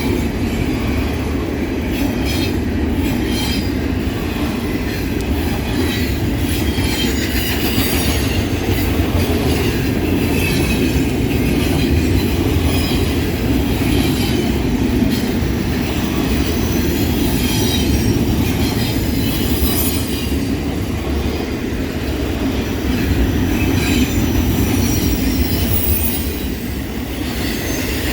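Freight train rolling past: a steady rumble of cars on the rails, with high wheel squeal wavering over it.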